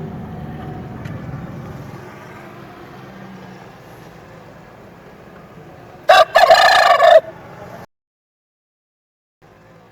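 Aseel rooster giving one short, loud crow about six seconds in, after a low rumble that fades away. The sound then cuts off suddenly to silence.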